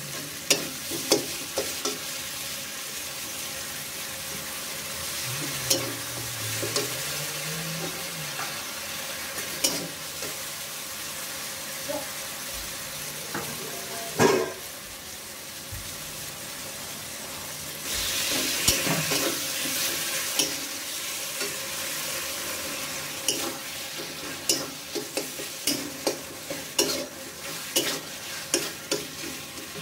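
Masala sizzling in hot oil in a kadai while a steel spatula stirs and scrapes, with scattered sharp taps of the spatula on the pan. The sizzle grows louder about 18 seconds in, and the taps come quickly and often near the end.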